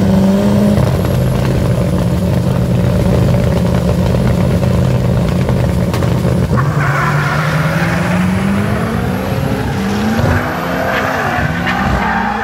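Drag-race cars, a VW Gol and a VW Saveiro pickup, holding steady revs at the start line. They then launch and accelerate down the strip, the engine note climbing, dropping once and climbing again.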